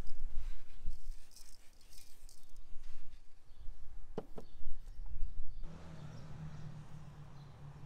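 Outdoor ambience with low wind rumble and a couple of sharp knocks near the middle as clay bowls are handled on the table. Partway through, the background switches abruptly to a steady low hum with faint hiss.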